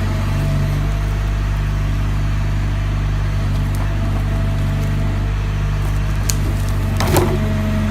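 Forestry harvester's engine running steadily, with a sharp crack of wood about seven seconds in.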